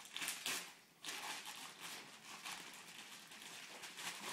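Wrapping paper crinkling and tearing as a Rottweiler tugs it off a gift with its mouth: a few short sharp rustles at first, then steadier rustling.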